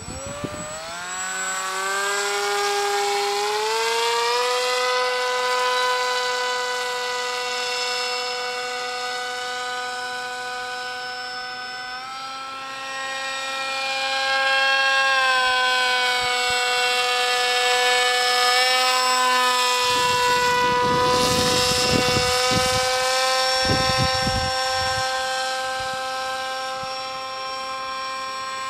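Paramotor engine and propeller droning overhead: the pitch climbs over the first few seconds as the throttle opens, then holds steady. A short rush of noise comes past the middle.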